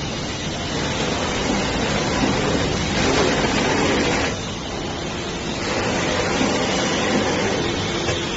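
CNC V-grooving machine running, a steady, noisy machine sound that drops back briefly a little past halfway and then picks up again.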